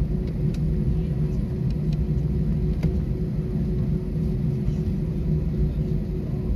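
Steady low rumble inside an airliner cabin while it taxis after landing, with a constant hum under it and a couple of faint clicks.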